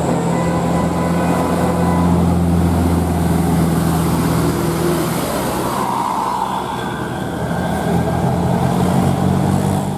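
A large diesel bus engine runs close by, a steady low drone with road and air noise over it.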